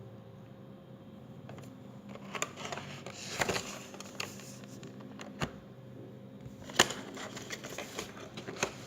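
Packaging of an electric hair trimmer set being handled and opened: scattered clicks, taps and knocks at irregular intervals, the sharpest about 3.5 and 7 seconds in.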